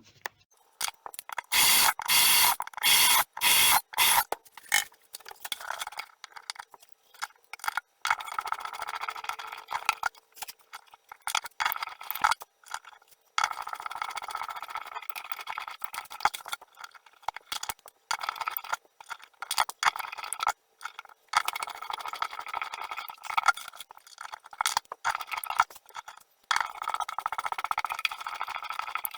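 Bridge-pin holes in an acoustic guitar's bridge being cut out: a few short, loud bursts in the first seconds, then repeated stretches of scraping as the tool cuts the wood, broken by short pauses.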